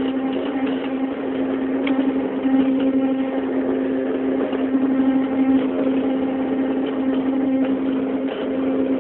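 CNC machine running with a steady, even hum and a few faint ticks.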